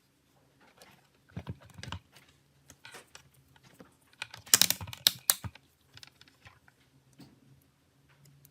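Irregular small clicks and taps of hand work on a Nokia E71 phone's parts, with a louder cluster of clatter about four to five seconds in.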